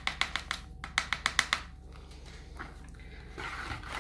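A run of about ten sharp taps in the first second and a half as a paper sachet of baking soda is flicked and tapped to shake the powder out over the bowl. Near the end a wire whisk starts beating the batter in the bowl with a steady swishing.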